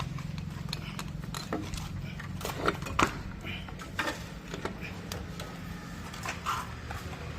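Light metallic clinks and taps, about half a dozen scattered through, from tools and bolts being handled during an AC compressor refit. They sound over a steady low hum.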